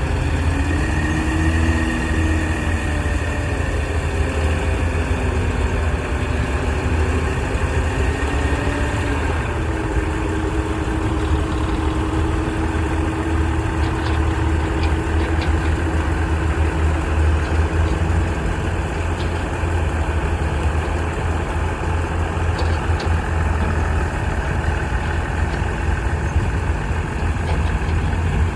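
Bulldozer's diesel engine running, its pitch wavering for the first ten seconds or so and then holding steady.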